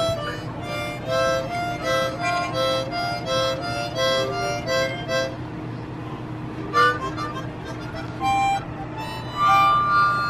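A small child blowing a harmonica: a run of short, quick notes for about five seconds, then a pause and a few scattered short blasts near the end.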